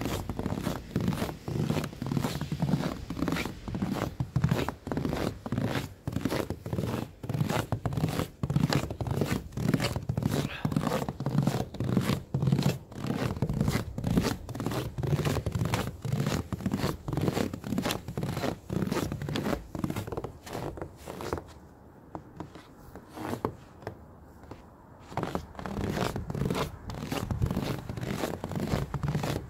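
Footsteps crunching in fresh snow, about two steps a second. The walking stops for about three seconds late on, then starts again.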